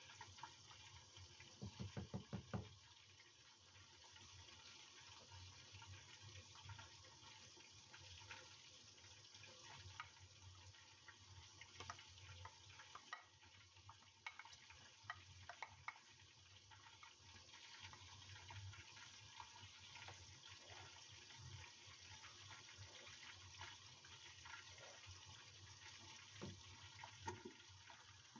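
Faint bubbling of a pot of rice parboiling at a rolling boil, with a wooden spoon knocking and stirring in the pot as chopped herbs are mixed into the rice. A quick run of knocks comes about two seconds in.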